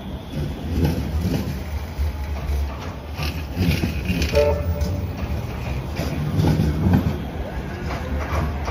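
Light-rail tram running, heard from on board: a steady low rumble from the running gear, with irregular knocks from the wheels over the track.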